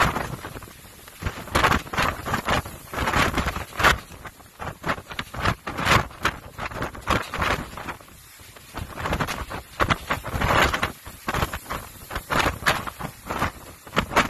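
Storm wind buffeting the microphone in irregular, loud gusts, over the rush of rough, breaking sea below a ship's side. There is a brief lull about eight seconds in.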